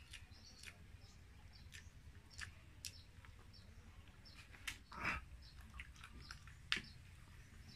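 Quiet eating and handling sounds at a table: scattered small clicks and rustles of hands, food and plastic containers, with faint bird chirps. A brief louder noise comes about five seconds in and a sharp click a little before seven seconds, as a plastic bottle of cola is handled for pouring.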